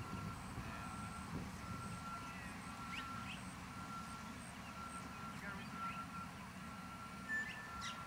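A vehicle's reversing alarm beeping at an even pace, one steady pitch, over a low engine rumble, with a few short bird chirps.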